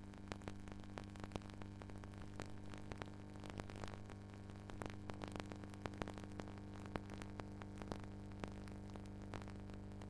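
Steady low electrical hum with scattered crackling clicks of static; no wind or voices stand out.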